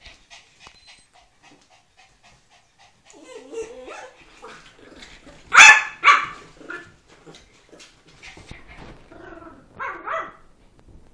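Two dogs at play, a beagle puppy and a Chihuahua–Jack Russell cross: quick rhythmic panting at first, then vocalising, with two loud barks about halfway through and two more barks near the end.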